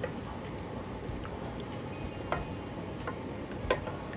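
A wooden spoon stirring a thickening milk-and-flour sauce in a pan, ticking sharply against the pan about once a second, with the loudest tick near the end, over a steady low hiss.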